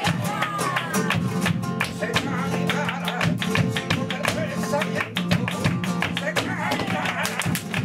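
Live sevillanas: flamenco guitar and a flamenco singer's wavering voice, over many sharp percussive strikes throughout.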